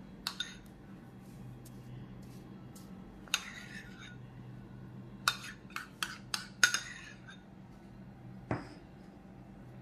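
Metal spoon clinking against a small bowl and scraping as jam is scooped out and spread. There are sharp light clinks, bunched between about five and seven seconds in.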